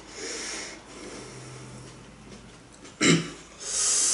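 Breath hissed out through the mouth, then a short loud huff about three seconds in followed by a long high hissing exhale: a person breathing against the burn of hot chili peppers.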